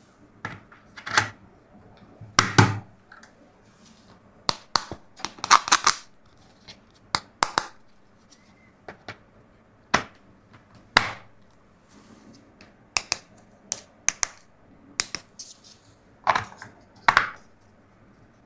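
Plastic toys and packaging handled by hand: irregular sharp clicks and clacks, some in quick clusters, with short gaps of quiet between.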